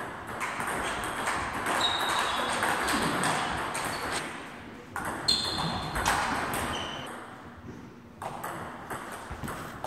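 Table tennis ball knocking back and forth between paddles and table during a rally, with short high squeaks now and then.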